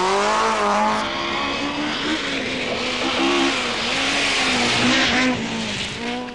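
Rally car engines at full throttle as the cars pass on a stage. First a Vauxhall Chevette HSR rises in pitch as it accelerates past. After a cut about a second in, a Ford Escort Mk2 runs hard, its pitch stepping down and up with gear changes under a rushing hiss. A rising engine note starts again near the end.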